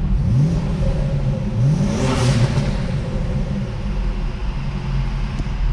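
Tuned BMW N54 twin-turbo straight-six accelerating hard, its pitch rising twice, with a rush of air noise about two seconds in; right afterwards the driver says the pull overboosted.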